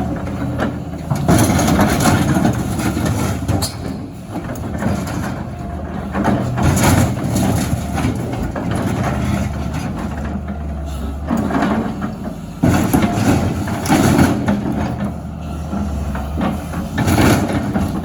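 Excavator engine running steadily under load, with repeated bouts of loud crunching and scraping as sheet-metal dumpsters are crushed, about five times.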